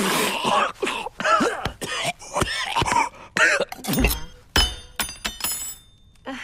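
A man coughing and choking on his food, with strained vocal groans. Two dull thumps come about four seconds in, followed by sharp clinks of glass and cutlery.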